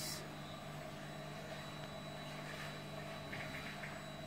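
Faint, steady low hum with a short run of light ticks about three and a half seconds in.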